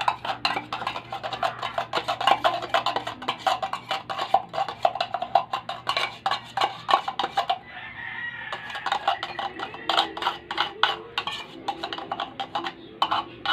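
Metal spoon stirring and tapping through a creamy fruit salad in a plastic tub: a fast, uneven run of clicks and scrapes against the plastic, with a short lull a little past the middle.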